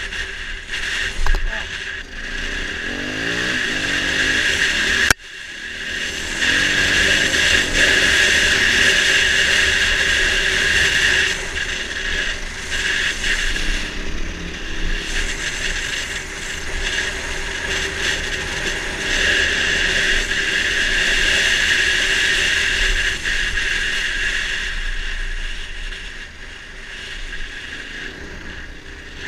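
Dirt bike engine running under way, revving up with a rising pitch a few seconds in, mixed with steady wind rush over a helmet-mounted camera's microphone. The sound drops out sharply for a moment about five seconds in, then the engine and wind carry on.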